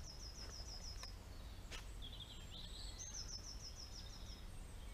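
Songbirds singing. Twittering notes are followed, about three seconds in, by a fast high trill of some nine notes lasting about a second and a half, over a faint steady low rumble.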